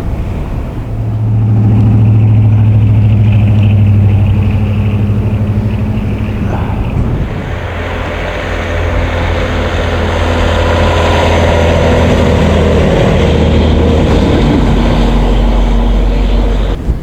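Motor vehicle engines running close by: one loud engine for the first several seconds, then another that builds up and keeps running until the end.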